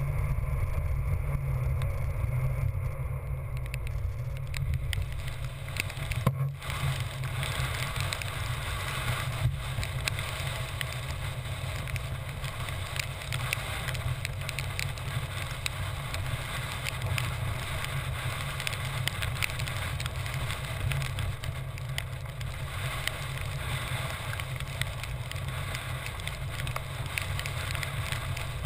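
Kite buggy rolling fast over wet ground, heard as a steady low rumble of wind on the microphone and the wheels, with a crackly patter over it. A single sharp knock comes about six seconds in.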